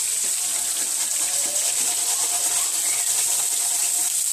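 Hot deep-frying oil sizzling steadily as a colander of battered fried fish is lifted out of the pot and drained over it.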